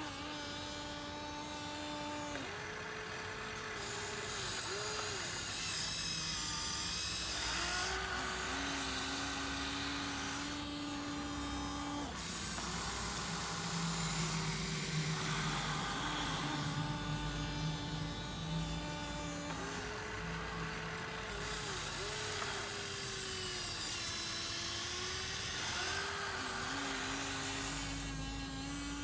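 Huina 1593 RC excavator's small electric motors whining while digging sand. The pitch steps up and down every few seconds as different functions start and stop, with a gearbox hiss that cuts in and out.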